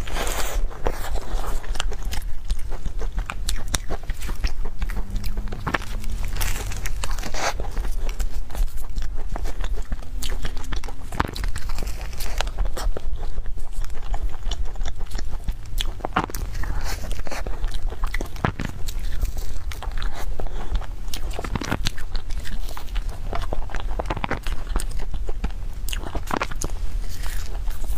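Biting into and chewing a custard-filled cream puff with a crunchy cookie crust. A loud crunching bite comes at the start, and sharp crunches of the crust keep coming at irregular intervals throughout.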